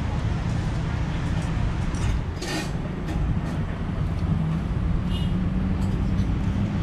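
Steady low rumble of street traffic, with a short sharp hiss about two and a half seconds in.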